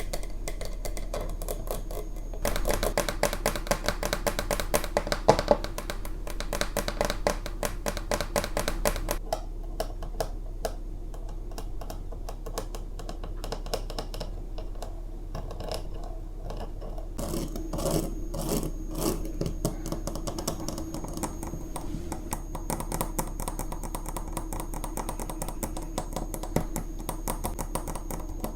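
Tapping and scratching on fridge magnets: a dense run of quick, light clicks and scrapes, loudest from about two to nine seconds in and softer after that.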